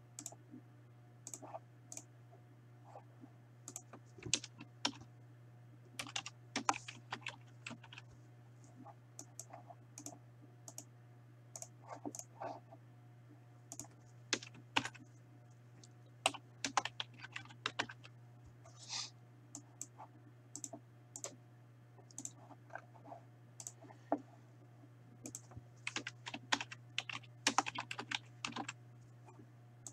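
Computer keyboard typing: irregular keystrokes in short clusters over a steady low hum.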